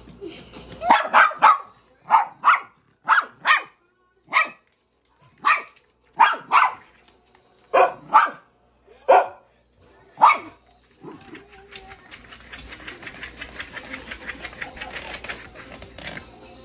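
Small white fluffy dog barking: about fifteen short, sharp barks, often in quick pairs, over about ten seconds, then they stop and only a soft rustling follows.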